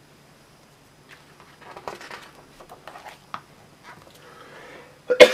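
Paper pages of a printed catalogue being handled and turned, with soft rustling and small crinkles. Right at the end comes a sudden, loud cough.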